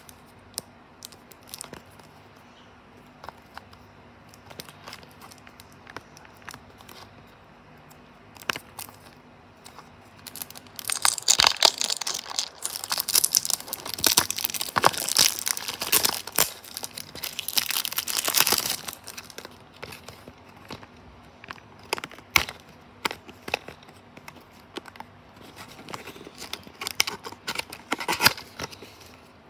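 Clear plastic film on a small cardboard toy-car box being picked at, torn and peeled off by fingers. Scattered small clicks and rustles at first, then about a third of the way in a dense stretch of crinkling and tearing for some eight seconds, easing back to occasional crinkles near the end.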